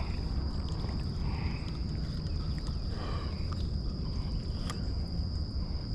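Insects, crickets, chirring in one steady high-pitched tone, over a low rumble, with a few faint clicks.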